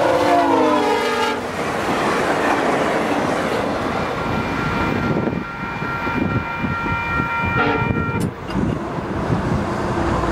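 VIA Rail P42DC locomotive's multi-tone air horn sounding as it passes at speed, the chord dropping in pitch and cutting off about a second and a half in. Then comes the rush and wheel-on-rail clatter of the passenger cars going by at about 150 km/h, fading as the train recedes.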